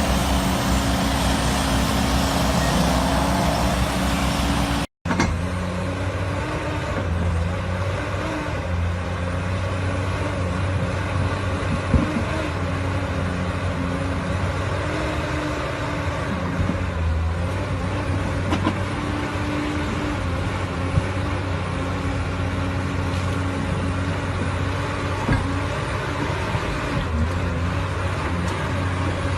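Heavy construction machines' diesel engines running steadily under work, with a sudden cut about five seconds in from one machine to another. A few sharp knocks and clanks of metal come through the engine noise.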